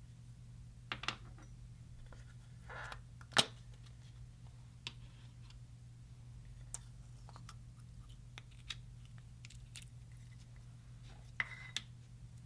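Clear slime being worked by hand with makeup: sparse sticky clicks, pops and short crackling squishes. A sharp loud click comes about three and a half seconds in, and another cluster of clicks near the end, all over a low steady hum.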